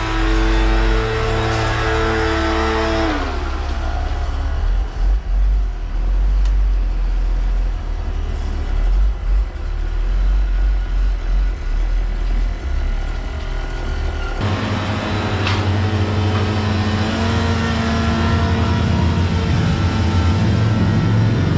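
Large work truck engine running; its pitch drops about three seconds in, and about halfway through it settles into a new steady tone with a heavy low rumble.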